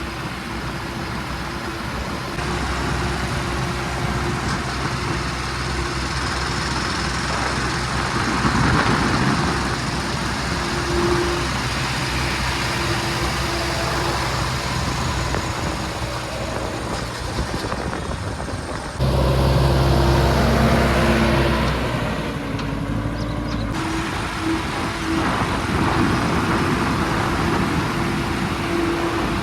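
Diesel engine of a JCB 3DX backhoe loader running under working load, a steady hum whose pitch and loudness shift in sudden steps; it jumps louder about two-thirds of the way through, then drops back.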